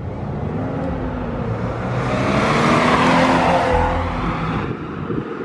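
Subaru WRX on its stock exhaust accelerating past, the turbocharged flat-four's note rising to its loudest about halfway through, then dropping and fading as the car pulls away.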